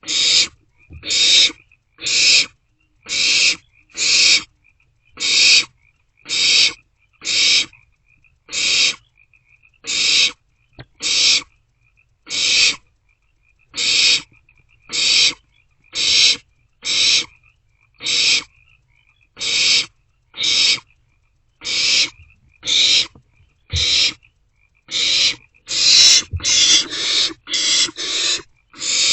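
Barn owlets giving harsh, hissing begging calls, one about every second, coming faster and overlapping near the end. Faint high chittering is heard between the calls.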